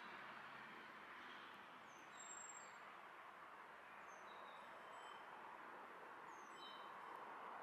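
Faint outdoor ambience: a steady distant hum with small birds chirping now and then, short high chirps, the clearest about two seconds in.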